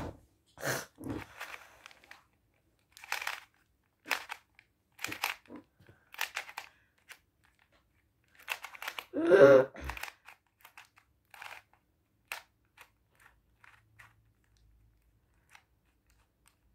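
Plastic 3x3 Rubik's cube twisted by hand, its layers clicking and rattling in short bursts every second or so, thinning to lighter ticks in the second half. About nine seconds in, a brief, louder vocal noise cuts across the twisting.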